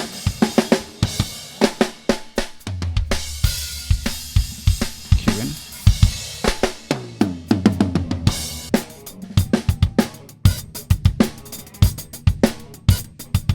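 Drum kit from a live band recording playing a groove of kick, snare, hi-hat and cymbals, isolated and run through a DIY Calrec PQ1549 clone EQ. One band is set to cut, with the shelf off and the Q out.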